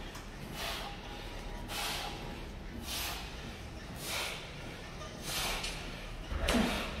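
A man exhaling hard and rhythmically with each cable-machine rep: six short, forceful breaths about one a second.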